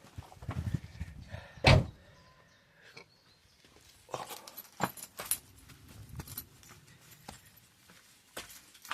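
Hand tools and small metal parts being handled: scattered clinks and knocks, with one loud knock just under two seconds in, then quieter sporadic clicks.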